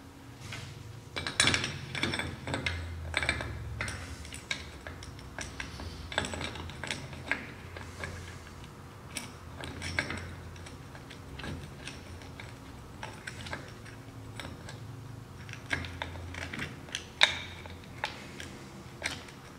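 Scattered metallic clinks, taps and light knocks of engine parts being handled and fitted by hand at the timing-chain end of a Polaris Sportsman 500 engine. A couple of sharper knocks stand out, one about a second in and one near the end.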